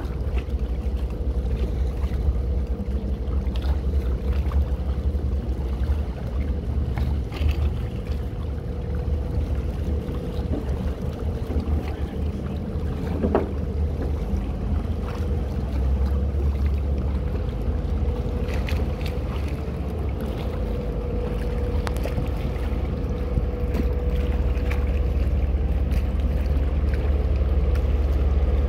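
Passenger catamaran's engines running with a steady low rumble and a steady whine as the boat pulls away from the quay.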